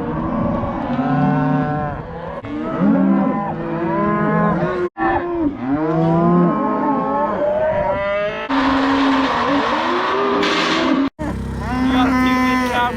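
A herd of cattle mooing and bawling, many calls overlapping and rising and falling in pitch. The sound breaks off for an instant twice, about five and eleven seconds in, and a steady rushing noise runs under the calls for a few seconds before the second break.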